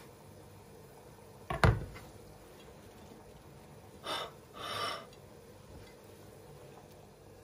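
A single sharp knock, like a hard object set down or struck, about one and a half seconds in, then two short scraping or rustling sounds around four to five seconds in, over quiet room tone.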